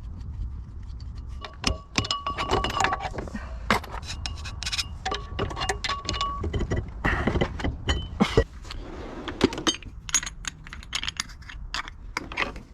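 Metal parts and hand tools clinking and knocking against each other, many short strikes, some leaving brief metallic rings.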